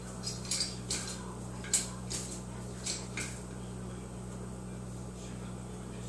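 A run of about eight short, sharp clicks and taps over the first three seconds or so, the loudest a little before two seconds in, over a steady low hum.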